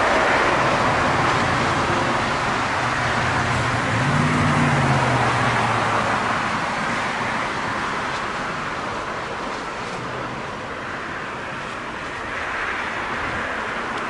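Jet engines of a Boeing 787-9 Dreamliner at takeoff thrust: a continuous roar through the takeoff roll, liftoff and climb-out, slowly fading as the airliner moves away.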